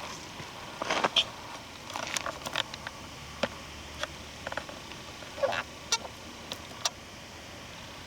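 Footsteps on the forest floor: irregular crunches and twig snaps, loudest about a second in, over a steady hiss of wind.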